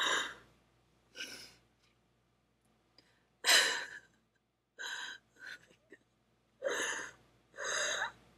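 A person's ragged, distressed breathing: about seven short gasping breaths and sobs, roughly a second apart, the loudest a little over three seconds in.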